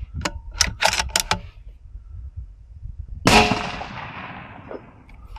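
A few sharp clicks from handling the 6BR (6mm BR Norma) rifle, then a single rifle shot about three seconds in, the report trailing off over about two seconds.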